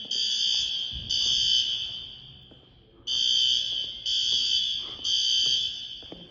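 Building fire alarm sounding, a screechy high-pitched electronic tone beeping in groups of three with a pause between groups: the temporal-three evacuation signal. Two beeps close one group, then after a pause of about a second a full group of three follows.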